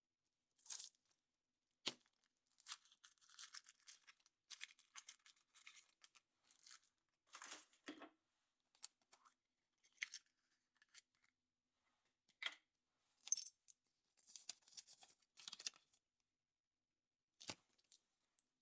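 Foil wrapper being peeled and torn off a chocolate surprise egg: short, scattered rustling and tearing noises, with a few sharp clicks.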